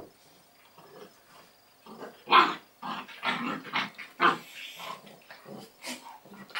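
Adult German Shepherd and German Shepherd puppy play-fighting, with short growls in irregular bursts: quieter for about the first two seconds, then a busy run, the loudest about two and a half seconds in.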